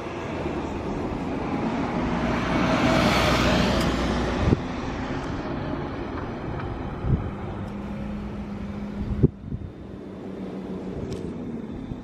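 Kawasaki Balius ZR250A inline-four engine running, swelling to its loudest around three seconds in and then easing back, with a few sharp clicks along the way and a sudden drop in level near the end.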